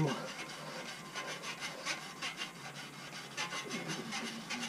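A long gallery brush scrubbing inside the oil passage of a bare Gen 3 Hemi engine block, pushed in and out in quick repeated strokes, about two or three a second, to loosen the dirt in the passage.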